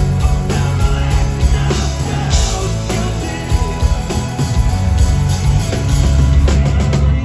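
Live rock band playing loudly, with a heavy low end and drums; it drops into a softer, quieter passage right at the very end.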